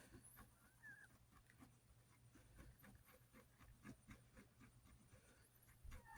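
Near silence: quiet room tone with faint small clicks and scratches scattered through, and a couple of faint high chirps about a second in.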